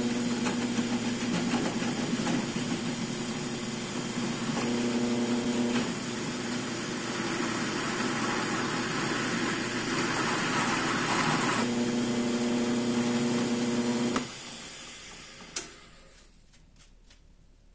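Drill press spinning a conical carbide rotary file that grinds out a starter hole in thin aluminum sheet: a steady motor hum under a harsh grinding rasp, roughest in the middle stretch. About 14 seconds in the motor is switched off and spins down, and a single click follows.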